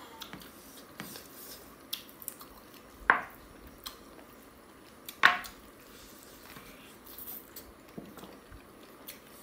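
Eating by hand from a plastic plate: fingers working rice and chicken curry, with small clicks and squishes, and two louder sharp sounds about three and five seconds in.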